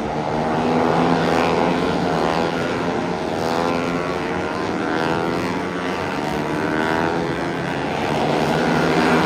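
A pack of Moto3 racing bikes, each with a 250cc single-cylinder four-stroke engine, going past at racing speed. Several engines are heard at once, their pitch repeatedly rising and falling as they rev through gear changes and pass by.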